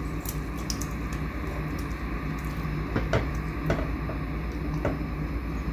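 Silicone spatula scraping the egg-and-potato mixture out of a plastic bowl into a frying pan, with a few light knocks against the bowl in the second half, over a steady low hum.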